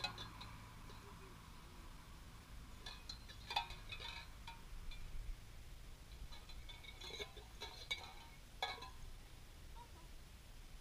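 Tin cans clinking and clanking together in several short, ringing rattles, a pair about three and a half seconds in and a cluster a few seconds later.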